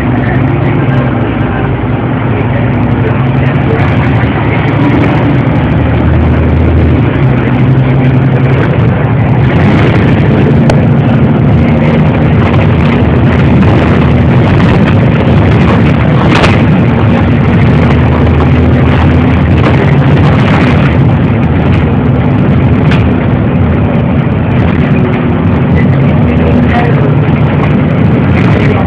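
City bus engine and road noise heard from inside the bus while it drives: a loud, steady low drone, with a few brief knocks or rattles along the way.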